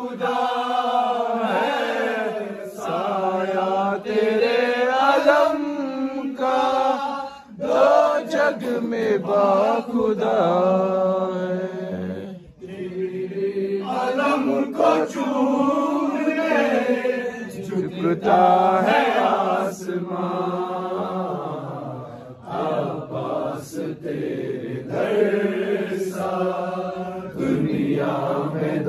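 A man chanting Shia devotional verse (kalam) unaccompanied, in long melodic phrases broken by short pauses for breath.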